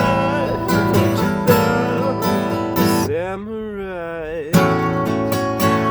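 Strummed acoustic guitar with a singing voice. About three seconds in, the strumming stops for a held, wavering sung note, and the strumming comes back in about a second and a half later.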